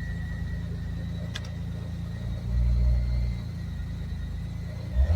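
Alfa Romeo 156 V6 engine running at idle after a timing belt change and ten years of standing, with a faint steady high whine over the rumble; it sounds wrong, and the owner wonders whether the clutch is the cause. About two and a half seconds in, the engine rises briefly in level. There is a short click early on and a sharp thump near the end.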